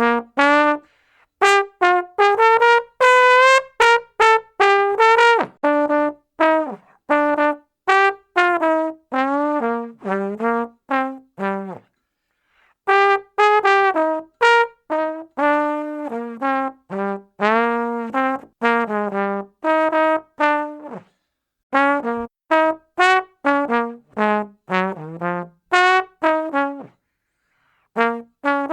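A brass instrument plays short detached notes in quick melodic runs, with a few longer held notes. The phrases are broken by brief pauses.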